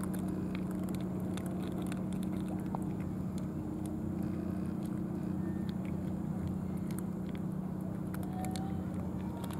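Cats chewing and lapping wet cat food from plastic trays: scattered small wet clicks and ticks. Beneath them runs a steady low mechanical hum, which is the loudest sound.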